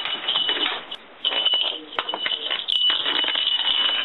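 A small metal bell jingling rapidly and continuously, shaken by a cat playing with it, with a brief pause about a second in.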